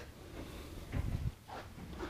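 Faint handling noise: a dull low thump about a second in, then a light click.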